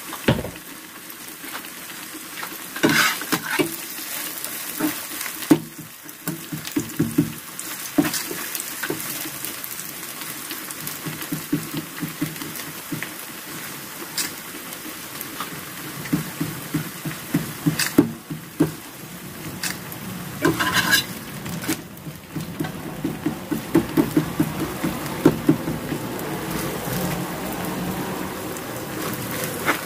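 Buckwheat-chive pancake sizzling and crackling as it fries in oil in a frying pan, with the fish-cake soup boiling in the pan beside it. A few sharp clicks stand out here and there, and the crackling grows busier in the second half.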